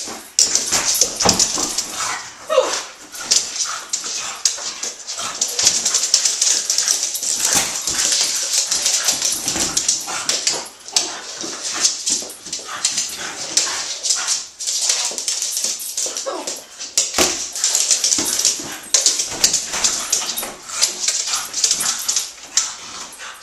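French bulldog vocalizing in excited play, with whines and yips, while it pushes a large ball around. Many short clicks and knocks run through it.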